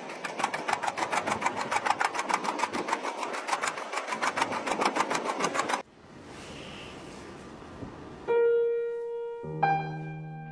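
A fast, even rattle of clicks lasts about six seconds and stops abruptly. After a short quieter stretch, music with long held notes begins near the end.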